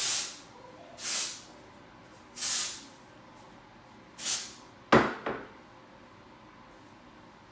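Aerosol texture spray hissing out in four short bursts about a second apart, sprayed onto the hair. About five seconds in come a sharp knock and a smaller one right after it.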